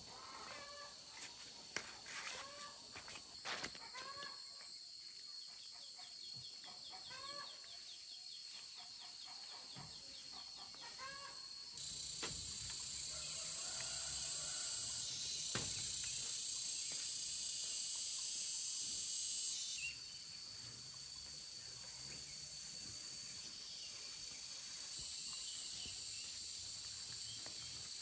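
Countryside ambience: short repeated calls from chickens or small birds over a faint hum of insects, then about twelve seconds in a loud, steady, high-pitched insect drone takes over, stepping up and down in loudness a few times.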